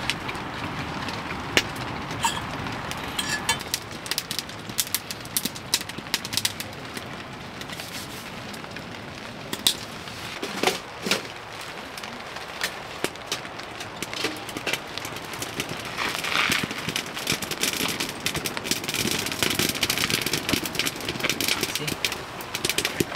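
Fire crackling in a small wood stove: scattered sharp pops and clicks over a steady hiss.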